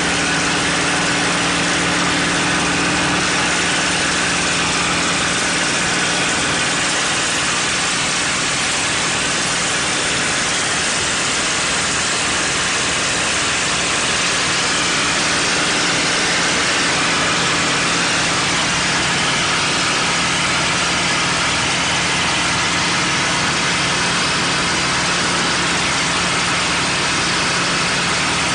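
P-51 Mustang's Packard Merlin V-12 engine running steadily in flight, heard from inside the cockpit as a constant low hum under a loud rush of airflow.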